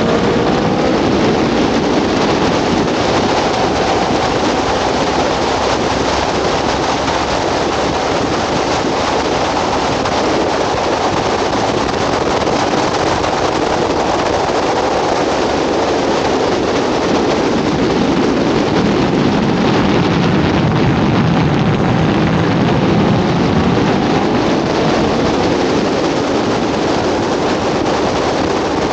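Onboard sound of an Aprilia sportbike at speed: a steady, loud rush of wind over the microphone, with the engine running underneath and its pitch faintly rising and falling with the revs.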